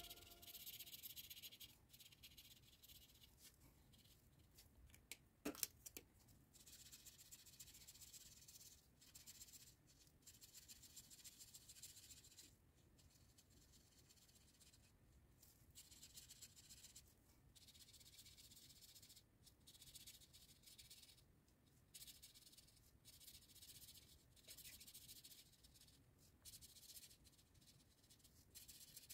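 Faint scratching of felt-tip markers colouring on paper, in runs of strokes broken by short pauses, with a soft tap about five and a half seconds in.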